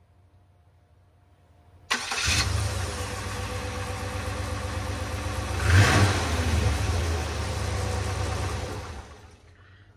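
Chevy small-block V8 started by a Remy PG260 gear-reduction starter: a short starter crank about two seconds in, the engine catching at once and idling, with a brief rev in the middle. It is shut off and winds down near the end.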